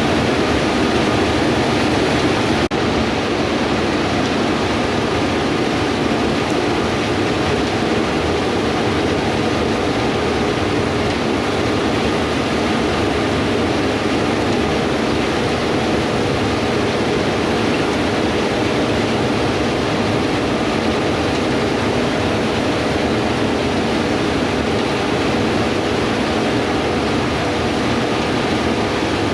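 Gleaner S98 combine harvester running steadily under load while cutting wheat: a constant machine drone with a faint steady whine.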